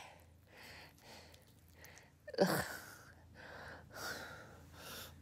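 A woman's heavy breathing in soft puffs, with one short groan falling in pitch about two and a half seconds in.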